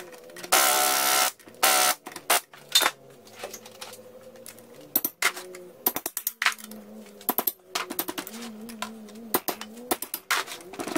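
Hand tools working on a two-cylinder jet ski engine: a loud scraping rustle for about a second near the start, then irregular metal clicks and clinks as a wrench loosens the cylinder base nuts.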